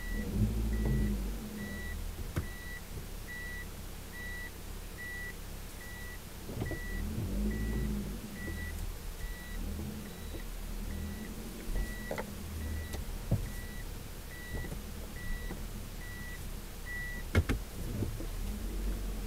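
Car's reverse-gear warning beeper, a short high beep about once a second over the low hum of the idling engine, stopping near the end just before a couple of sharp clicks.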